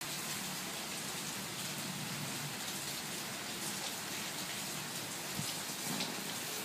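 Steady rain falling, an even hiss of many drops, with a couple of louder splashes about five and six seconds in.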